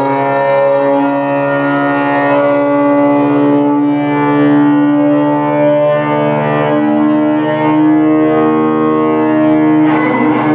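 Live ambient drone music: long, layered held tones from an effects-processed baritone guitar, sounding like bowed strings and shifting slowly in pitch. A new chord is struck near the end.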